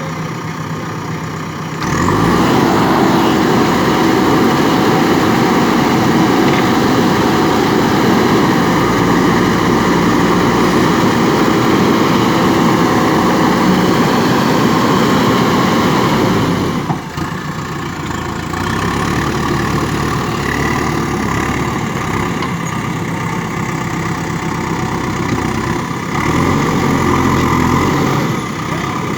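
JCB backhoe loader's diesel engine running. It speeds up and works hard about two seconds in, drops back near the middle, and picks up again briefly near the end.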